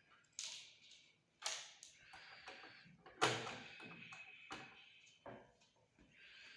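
Hand screwdriver taking out the last cross-head screws of a metal NVR case: several sharp clicks and knocks with light scraping between them.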